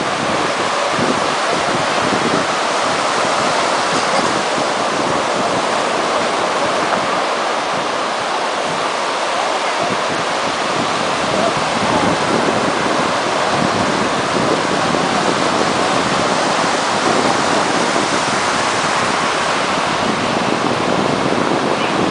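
Steady rush of sea water and wind buffeting the microphone, an even noise with no distinct strikes.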